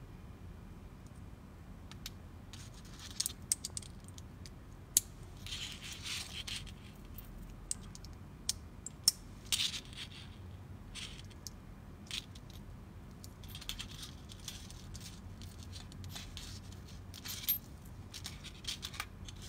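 Irregular small clicks, taps and short scrapes from hands handling a small plastic band-resizing tool and the metal watch-band parts.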